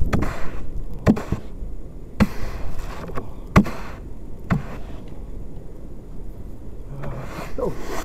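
Snow brush sweeping heavy snow off a car roof, its head knocking against the car about once a second for five strokes, then quieter.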